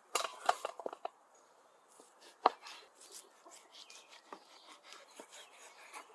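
A quick run of knocks and wet thuds in the first second as raw lamb pieces are slid off a wooden board into a stainless steel pan, then a knife cutting raw lamb on a wooden cutting board, with one sharp knock about two and a half seconds in and scattered small clicks.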